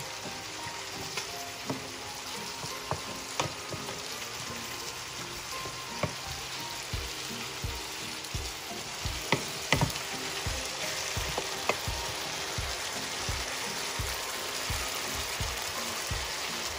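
Corn kernels and diced tomatoes sizzling in an electric skillet as they are stirred with a wooden spoon, with scattered clicks and knocks of the spoon against the pan, loudest a little past the middle.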